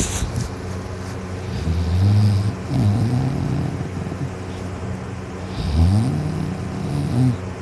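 A sleeping person snoring: two snores, about two and six seconds in, each wavering up and down in pitch, over a steady low hum.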